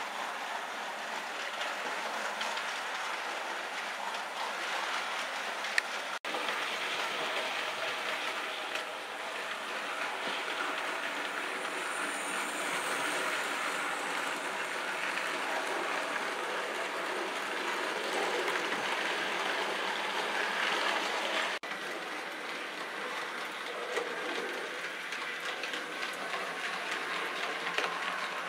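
Model trains running on a layout's track, a steady rolling wheel-and-motor noise with little deep bass. The sound breaks off abruptly twice, about six seconds in and again about 22 seconds in, and each time resumes straight away.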